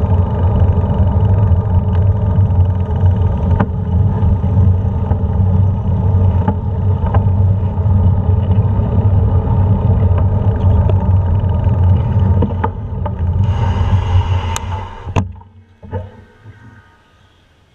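Steady wind buffeting on the microphone and road noise from a moving bike, with a brief hiss about thirteen and a half seconds in; then it drops away abruptly after about fifteen seconds as the bike stops.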